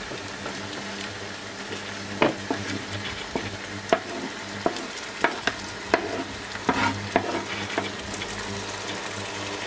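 Chopped raw chicken livers going into a hot frying pan of butter and shallots and frying with a steady sizzle. A wooden spatula scrapes them off a wooden cutting board, knocking sharply against the board and pan about a dozen times from about two seconds in.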